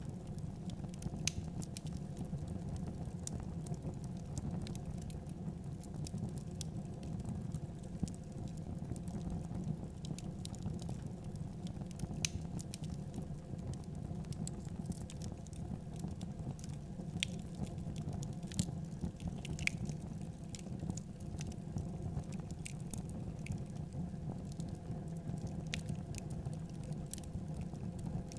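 Open fire in a clay stove crackling and popping at irregular intervals over a steady low rumble, as a skewered whole chicken roasts in the flames and basting drips sizzle on the fire.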